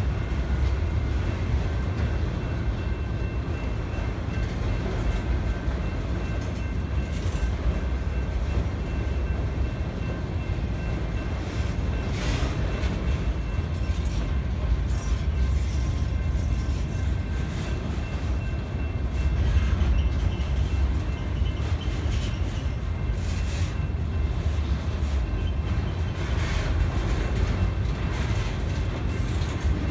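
Autorack freight train cars rolling past: a steady heavy low rumble of steel wheels on rail, with a louder metallic clatter now and then.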